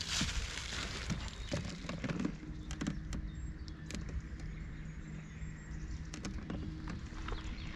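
Faint steady hum of an electric trolling motor over a low rumble, with a few small clicks and knocks scattered through.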